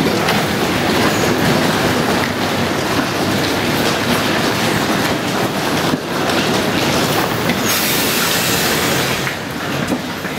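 Steady, loud rumbling railway noise at a station platform beside a train, with a high hiss for about a second and a half near the end before the noise drops a little.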